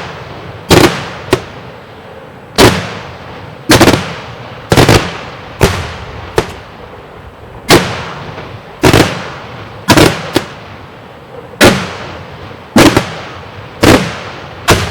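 Daytime fireworks shells bursting in loud, sharp bangs about once a second, some in quick pairs, each trailing off in a short echo.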